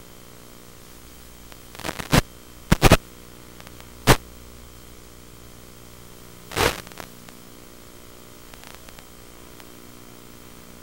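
Steady electrical hum and hiss on the audio of an analog FPV video link. It is broken by short crackles of static about two, three, four and six and a half seconds in, the sign of brief breakups in the radio signal.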